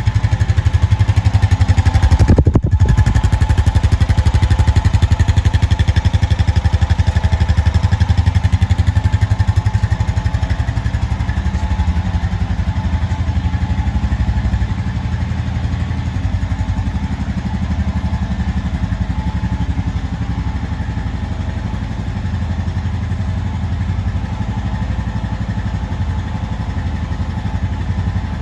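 Honda TRX 520 FA6 ATV's 518cc single-cylinder four-stroke engine running steadily. It gets slightly quieter about twelve seconds in.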